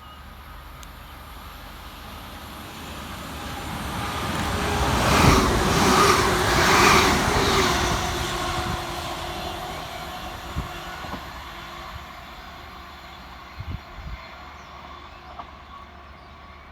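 Scotrail Class 385 electric multiple unit passing through the station without stopping: the rush of the train builds, peaks about six seconds in with a steady tone under the noise, and fades away, followed by a few faint knocks.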